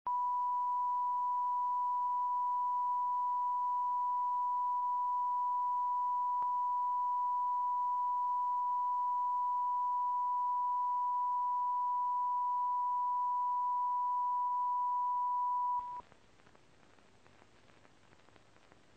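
A steady 1 kHz line-up tone, the reference tone that goes with colour bars for setting audio levels. It cuts off sharply about 16 seconds in, leaving only faint hiss.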